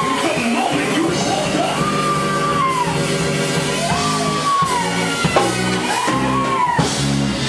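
Loud live church praise music from a band with drums and cymbals. A voice yells over it in long calls that rise and fall.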